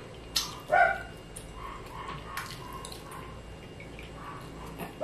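Wet mouth sounds of eating with the fingers: lip smacks and finger licking. A short high-pitched squeal comes about a second in and again at the very end.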